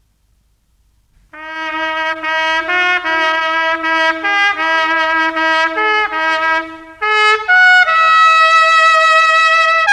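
Trumpet playing a tune of short, separate notes that starts after about a second of silence. Near the end it breaks off briefly, then climbs to a long held note.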